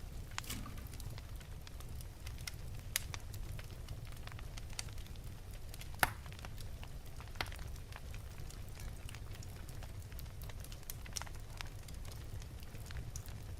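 Wood fire burning in an open fireplace: a steady low rumble of the flames with irregular sharp crackles and pops, the loudest snap about six seconds in.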